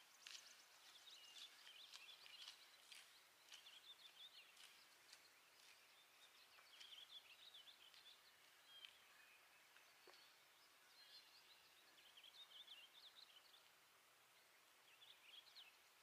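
Faint songbirds calling in woodland: scattered short chirps and trills, with a few faint ticks.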